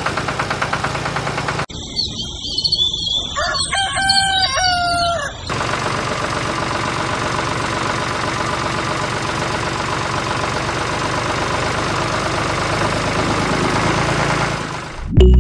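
A small engine runs with a rapid, even pulse, then cuts off abruptly to a rooster crowing once, a long call. After that a small engine-driven machine runs steadily for the rest.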